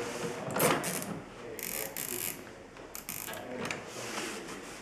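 Plastic zip ties ratcheting through their locking heads as they are pulled tight, in several short zips a second or so apart.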